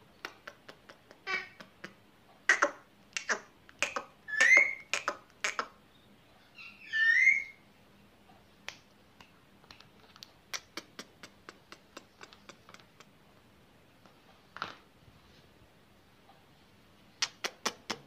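Finger snaps near an Indian ringneck parakeet, some single and some in quick runs of about three or four a second, with a few short chirps in between.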